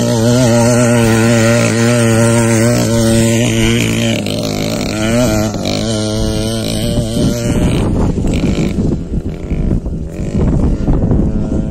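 Small two-stroke brush-cutter engine of a homemade go-kart with a straight-through exhaust, revs rising and falling as it drives over grass. About eight seconds in the engine fades with distance and wind buffeting the microphone takes over.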